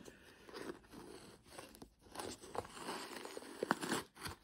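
Socks being pulled out of a cardboard advent-calendar compartment: fabric rustling and cardboard scraping, with a few short sharp clicks.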